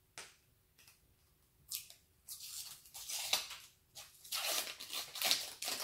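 Plastic toy packaging being torn open by pulling its tape-like tear strip: several rough tearing and rustling stretches starting about two seconds in.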